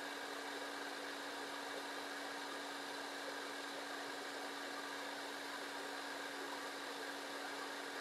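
Turbo 1500 corded hair dryer running steadily on its high heat setting: an even rush of air with a constant hum underneath.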